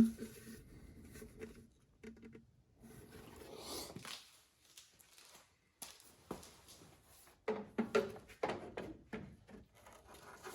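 Faint handling noises: a sharp click at the start, then scattered light knocks and soft rustling.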